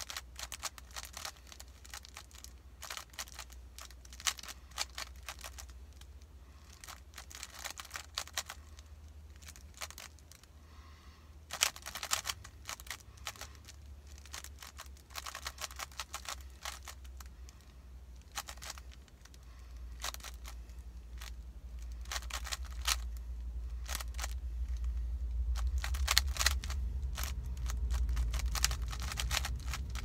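3x3 Rubik's Cube being turned fast by hand in a speed solve: quick runs of plastic clicking and clacking as the layers snap round, broken by short pauses. A low rumble underneath grows louder in the last third.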